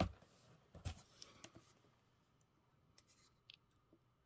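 Faint handling noise of a hardback book and its cardboard packaging: two soft knocks in the first second, then a few light ticks and rustles about three seconds in.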